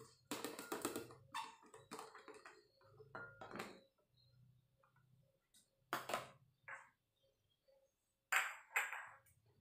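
Chopped tomatoes, chillies, shallots and garlic dropping into a blender jar, with a plastic tub clicking and tapping against the jar as the last pieces are shaken out. A run of light clicks in the first second, then scattered single knocks, the two loudest close together near the end.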